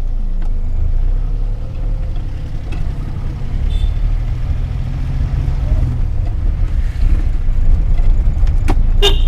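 Cab of a 1984 Daihatsu Hijet 1000 on the move: the engine and road noise make a steady low drone, and the engine note changes about six seconds in. A couple of short clicks come near the end.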